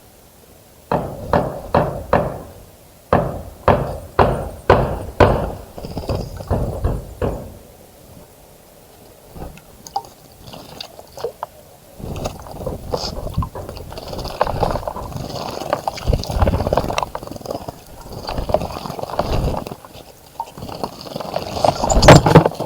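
A small bird bathing in a shallow bird bath, splashing the water. First a run of separate quick splashes, then a pause, then longer, busier splashing through the second half.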